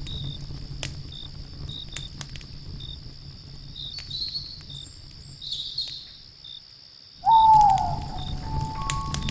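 Wood fire crackling with sharp pops over a low rumble of flames, while crickets chirp steadily in a high, repeating pulse. A little after six seconds the sound fades out almost entirely. Then a loud tone comes in sliding downward and settles into held notes.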